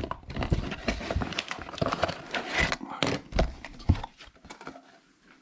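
Plastic bags of LEGO pieces rustling and rattling, with scattered knocks, as they are pulled out of the cardboard box and set down; the handling dies away about four seconds in.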